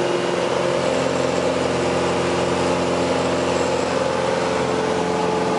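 Light private airplane's engine and propeller running steadily at climb power, heard from inside the cabin as an even drone with a constant pitch.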